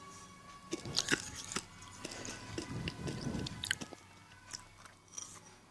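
Eating sounds up close: irregular crunching and chewing of food, with a cluster of sharp crunches about a second in and more chewing a couple of seconds later.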